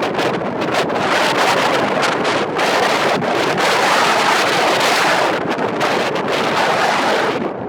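Strong wind buffeting the microphone, a loud, gusting rush.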